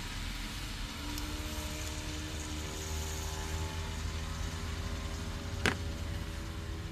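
Steady background noise with a low hum and a faint engine-like drone, broken about five and a half seconds in by a single sharp click as the homemade bolt-and-nut tool is set down on the work surface.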